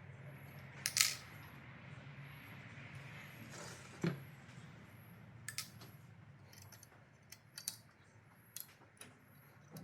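Scattered light clicks and taps of small hard objects being handled, with a brief sliding sweep ending in a knock about four seconds in, over a faint steady low hum.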